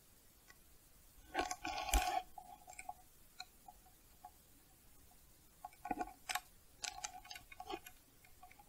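Two clusters of small sharp clicks and taps, the first about a second and a half in and the louder, the second from about six to eight seconds in, each click with a short ringing note.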